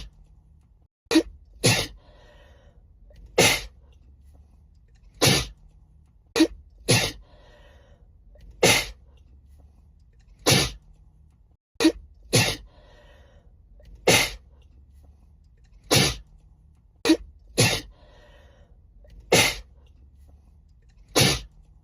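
A woman sneezing over and over in a fit, a sharp sneeze every one to two seconds, sometimes two in quick succession, over a faint low hum.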